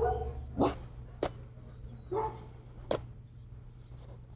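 A dog barking a few short times, spaced out, over a steady low hum.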